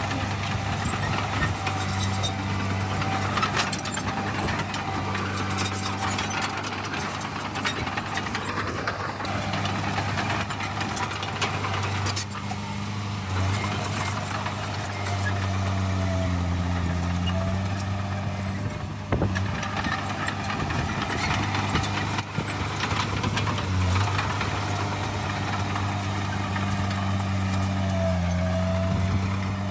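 Heavy diesel engine of earthmoving machinery running steadily, its pitch dipping and recovering a little past halfway and again near the end, with a single sharp knock just after the first dip.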